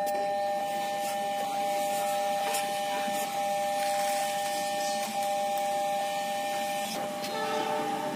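Railway level-crossing warning alarm sounding continuously: a steady two-tone electronic signal, meaning the crossing is closed for an approaching train.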